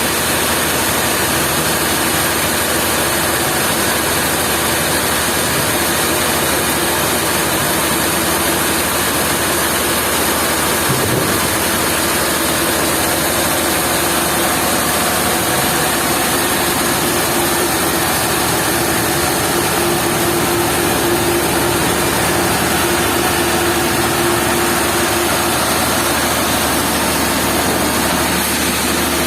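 Heavy machinery running steadily: a loud, unbroken engine or motor noise with a faint steady hum.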